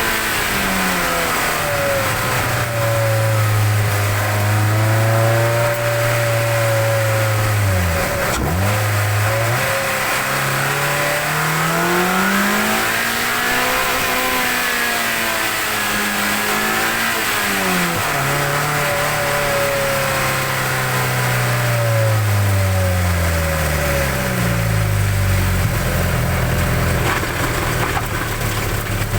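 Mazda MX-5 NC1's 2.0-litre MZR inline-four, fitted with a cold air intake and aftermarket cams, heard from under the bonnet with loud intake noise while driving. The revs rise and fall, with sudden drops in pitch at gear changes about eight seconds in and again about eighteen seconds in. The revs fall in several steps near the end.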